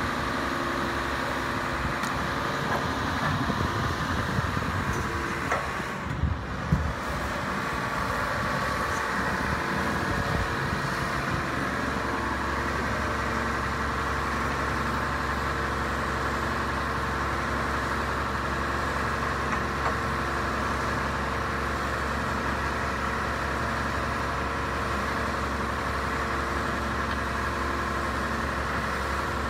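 Straddle carrier's engine running steadily while its hoist lifts a boat clear of the water on slings. For about the first ten seconds an irregular low rumble rides over it, then the low end settles into a steady hum.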